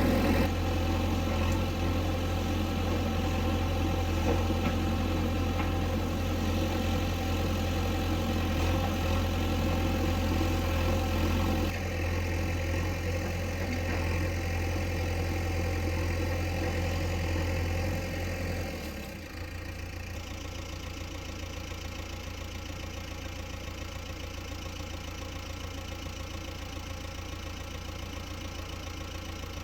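Diesel engine of a JCB backhoe loader running steadily, then dropping to a lower, quieter idle about two-thirds of the way through.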